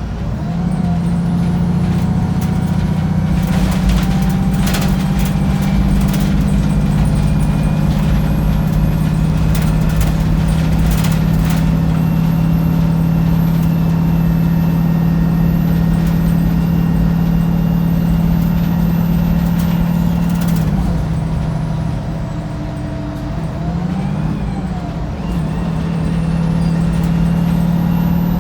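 Wright Pulsar 2 single-deck bus heard from inside the saloon, its diesel engine pulling hard under load with a steady high-revving drone. About two-thirds of the way through the engine eases off and its pitch dips and wavers before it picks up again, with a few sharp rattles from the bus body.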